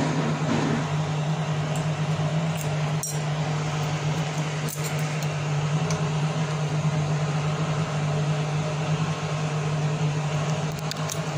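Steady machine hum with an even hiss behind it, broken by two faint clicks about three and five seconds in.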